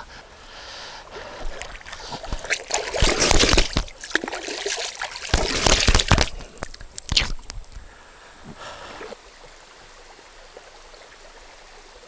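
Water splashing and sloshing as a person wades and bends to scoop water by hand in a shallow mountain stream, in two louder spells about three and six seconds in. After that only the faint, steady trickle of the stream is left.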